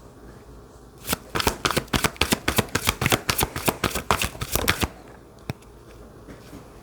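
A deck of tarot cards shuffled by hand: a quick run of card slaps and flutters lasting about four seconds, then one single click.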